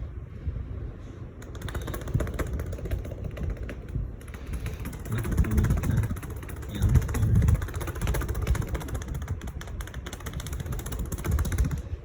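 SMC Park Avenue III ceiling fan running on high: a steady rush of air with uneven low rumbling that swells and fades. The fan has a bad wobble.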